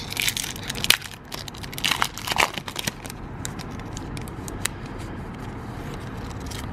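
Foil booster-pack wrapper being torn open and crinkled by hand: a dense run of crackles and rips over the first three seconds, then a few faint crinkles. A steady low background rumble lies underneath.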